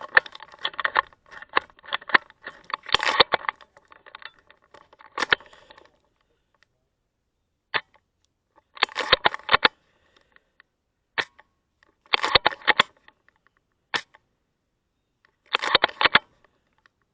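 Airsoft gun firing in rapid bursts: three short bursts of about a dozen quick shots each in the second half, with irregular clicking shots before them.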